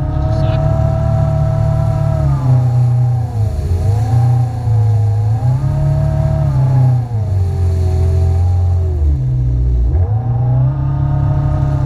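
Jet ski engine running underway, its pitch dropping and climbing again several times as the throttle is eased and reopened, over a deep rumble.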